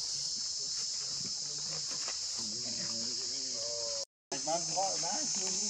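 Steady, high-pitched drone of an insect chorus, with faint wavering vocal sounds underneath. The sound cuts out completely for a moment about four seconds in, then resumes.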